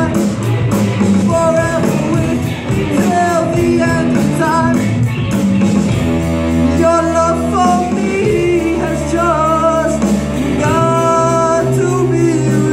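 Live rock band playing: a singer over electric guitars, bass guitar and drums.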